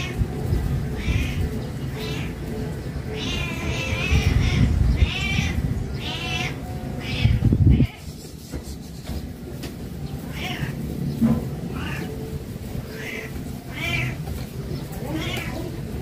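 Repeated short, wavering animal calls, about one a second, over a low rumble that cuts off abruptly about halfway through.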